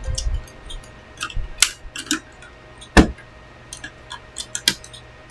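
Irregular plastic clicks and clacks of mechanical-keyboard keycaps being worked at while trying to pull out a stuck alt keycap, with one sharper knock about three seconds in.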